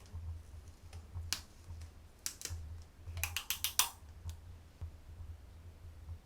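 Light, sharp clicks and taps: a few scattered ones, then a quick run of about seven near the middle, over a steady low hum.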